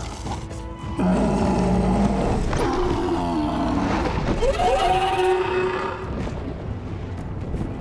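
Dragon growling and roaring, a creature sound effect. It starts loudly about a second in and has a rising, wavering call partway through.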